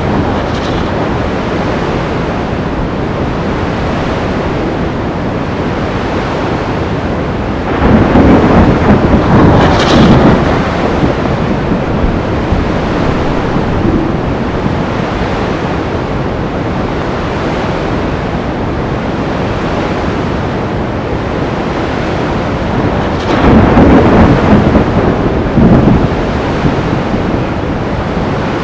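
Stormy sea ambience: a steady roar of surf and wind, broken twice by loud claps of thunder, about eight seconds in and again near twenty-three seconds, each lasting a couple of seconds.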